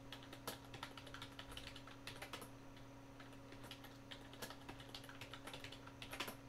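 Computer keyboard being typed on in quick, irregular key clicks while a password is entered and then entered again to confirm, with a louder burst of keystrokes near the end. A faint steady hum runs underneath.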